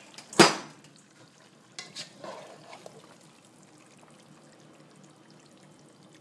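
A serving spoon knocking against the cooking pot as chicken curry is spooned over a layer of rice: one sharp, loud knock about half a second in, then a few lighter clicks and a scrape around two seconds in.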